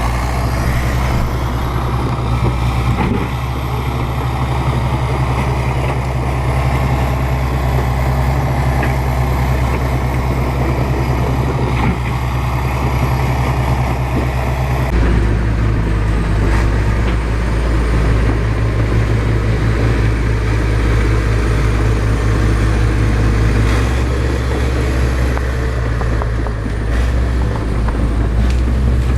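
Bulldozer's diesel engine running steadily under load, its note changing abruptly about halfway through.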